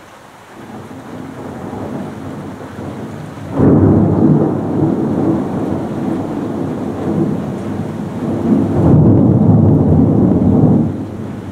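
A long roll of thunder: a low rumble that builds for a few seconds, turns loud and rolling with a sudden jump, swells again later and dies down near the end. Rain falls steadily underneath.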